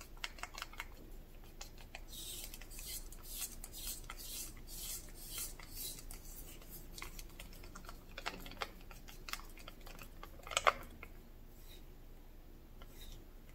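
Wooden craft stick stirring acrylic paint medium in a plastic cup, working the wetting agent in: quick scraping clicks of the stick against the cup wall, thickest in the first half, with a sharper knock about ten seconds in.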